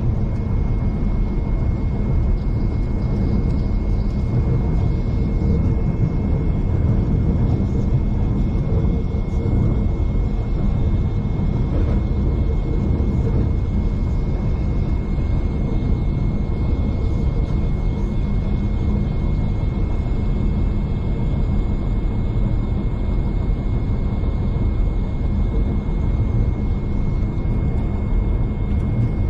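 Steady rumble of a V/Line passenger train running along the track, heard from inside the carriage, with a steady high whine.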